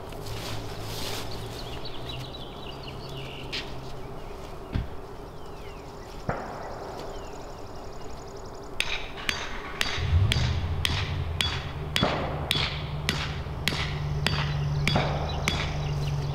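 Hammer strikes at a fence post, about two a second, beginning about nine seconds in. From about ten seconds in, a low steady engine hum runs underneath, from the petrol post hole auger.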